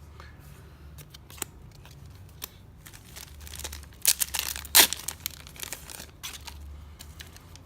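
Foil wrapper of a Yu-Gi-Oh! booster pack crinkling and being torn open by hand, with scattered crackles and the loudest rips about four and five seconds in.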